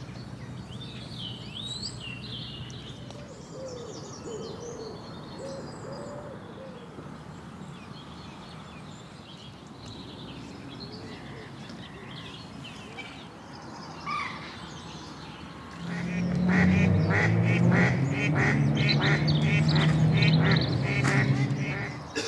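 Waterfowl calling on the water: faint scattered calls at first, then from about sixteen seconds in a loud run of rapid repeated honking and quacking for about six seconds.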